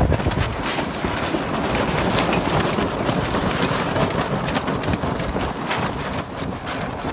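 Steady rush of water and spray against a moving boat on a choppy sea, with many small sharp splashes through it.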